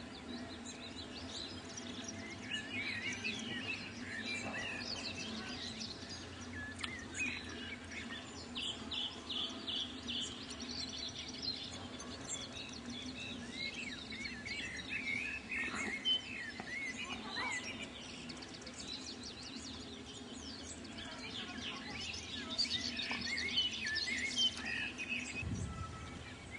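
Songbirds chirping and singing in short, varied phrases that come and go throughout, over a steady low hum.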